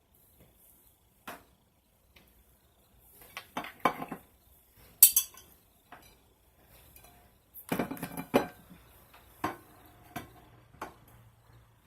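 Irregular clinks and taps of kitchen utensils against dishes, such as a spoon knocking egg yolks out into a bowl and egg whites being set on a plate. The sharpest knock comes about five seconds in, and a cluster of clatter follows around eight seconds.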